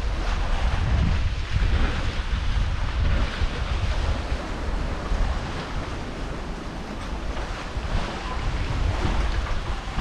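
Sea water washing along the hulls of a sailing catamaran under way, with wind buffeting the microphone in an uneven low rumble.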